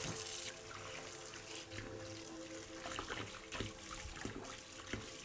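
Tap water running and splashing over freshly sanded 3D-printed plastic parts as the sanding dust is rinsed off.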